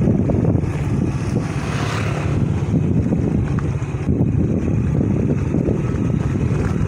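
Wind rumbling on the microphone during a motorbike ride, with the engine and road noise underneath, steady throughout.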